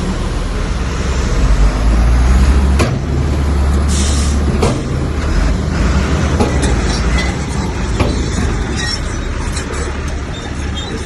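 Komatsu bulldozer's diesel engine running with a steady deep rumble, heaviest in the first three seconds, with two sharp clanks a few seconds in and a short hiss between them.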